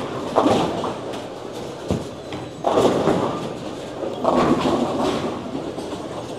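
Bowling-centre lane noise: balls rolling and pins crashing on neighbouring lanes, with three louder swells and a sharp thud in between.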